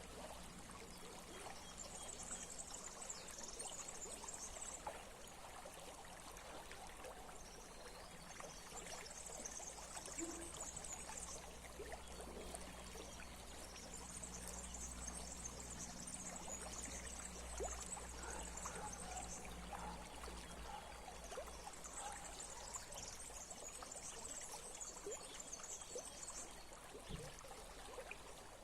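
Small stream flowing and trickling steadily, with a high chirring that comes and goes every few seconds.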